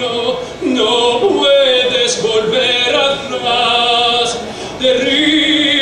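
Man singing a Spanish-language ballad in a full operatic voice, holding several long notes with vibrato and short breaks between them.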